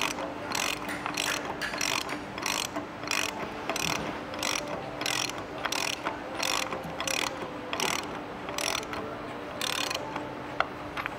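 Hand ratchet socket wrench clicking in a steady run of quick strokes, about two and a half a second, stopping near the end, as it tightens the stator clamp-ring bolts to draw the pump's stator up against the hopper.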